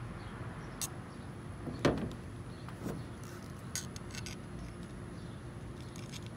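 Wiss M1 aviation snips cutting 20-gauge sheet steel: a few separate sharp clicks and crunches as the blades bite through, the loudest about two seconds in, over a steady low hum.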